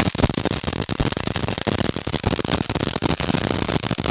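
A lit firework spraying sparks with a dense, unbroken crackle of rapid tiny pops.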